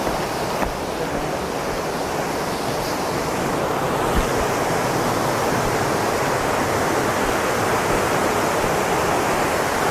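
Steady rushing of a mountain river's flowing water, an even roar that holds at the same level throughout.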